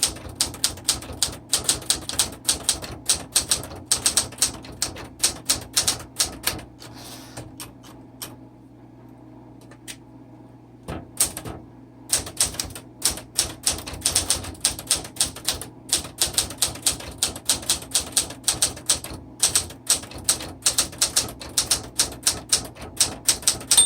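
Smith Corona Classic 12 manual typewriter being typed on: a fast run of crisp key strikes, several a second. Near the middle the typing breaks off for about four seconds, with only a couple of lone strikes, then carries on.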